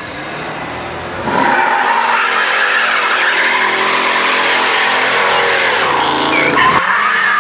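Pontiac Firebird Trans Am doing a burnout: the engine is revved hard and the spinning rear tyres squeal on the asphalt, loud and sustained from about a second in.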